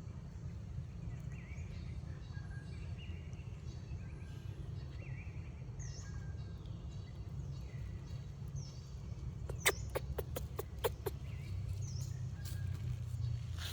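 Steady low rumble with short high chirps scattered through it, and a quick run of sharp clicks about ten seconds in and again near the end.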